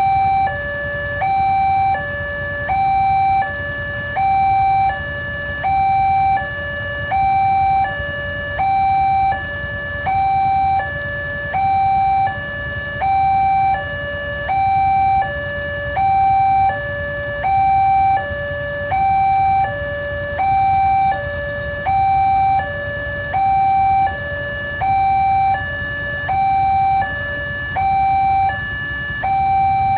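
Railway level-crossing warning alarm sounding a steady two-tone high-low signal, about one high-low cycle every one and a half seconds, warning that a train is approaching. A steady low rumble runs underneath.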